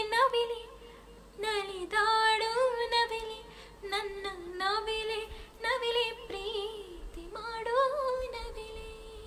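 A woman singing a Kannada film song unaccompanied, in sustained phrases of a second or two with slight wavering on the held notes and short breaths between them.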